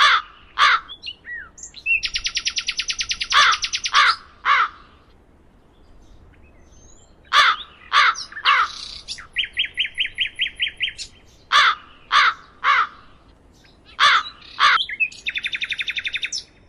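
Birds calling: short harsh caw-like calls repeated in groups of two or three, with rapid rattling trills between them.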